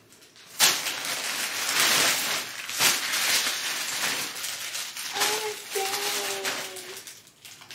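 Plastic mailer bag crinkling and rustling as it is handled and opened, a steady stream of crackles. A short hummed voice sound comes in about five seconds in.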